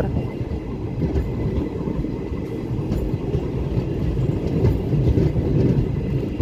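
Passenger train rumbling slowly over the rails as it pulls into a station, with occasional faint clicks from the wheels.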